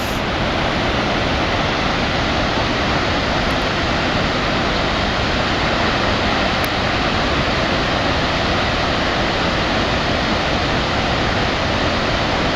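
Waterfall roaring: a steady, unbroken rush of falling water.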